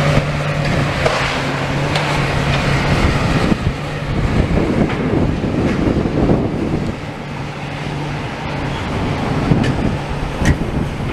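Diesel engine of heavy demolition machinery running steadily, with a low hum that dips briefly a couple of times, over wind noise on the microphone. A few sharp knocks come near the end.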